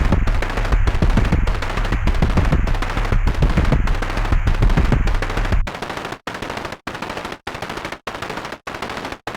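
Elastic Drums drum-synthesizer app playing a harsh, noisy drum pattern of rapid hits over heavy deep bass, broken up about every 0.6 s. A little over halfway through the bass drops out, and thinner, choppier noisy hits carry on in the same rhythm.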